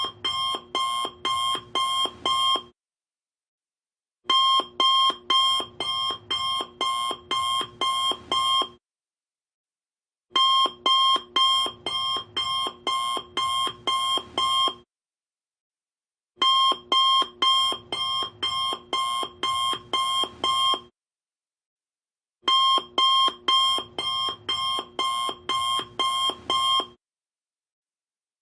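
Alarm clock ringing in bursts of rapid, evenly spaced pulses, each burst lasting about four and a half seconds with about a second and a half of silence between, repeating the same pattern four times over.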